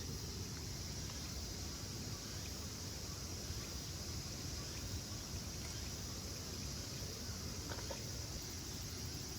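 Steady high insect chorus over a low, even rumble of outdoor background noise, with a faint click about eight seconds in.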